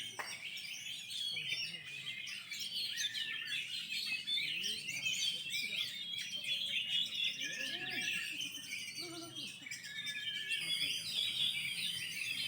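Several oriental magpie-robins (kacer) singing at once in dense, overlapping chirps, whistles and trills.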